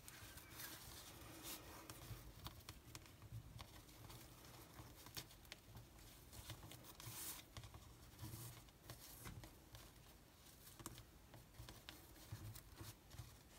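Near silence, with faint, scattered rustles and light clicks of ribbon and card being handled as a bow is tied.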